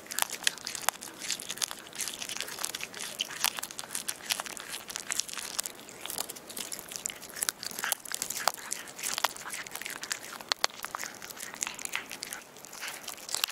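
A black-and-white kitten chewing a small raw fish, heard close: an irregular, steady run of crunches and sharp clicks as it bites through flesh and bone.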